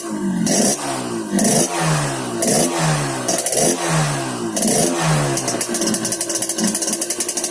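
Yamaha RX-King's single-cylinder two-stroke engine revved in short blips about once a second, each rev falling back in pitch, then settling toward a fast, rattly idle near the end. The exhaust is set up for the growling 'ngorok' note.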